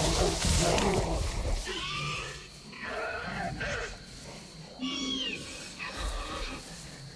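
Film dinosaur vocalisation sound effects: a loud, rough roar, then a series of shorter calls that slide in pitch.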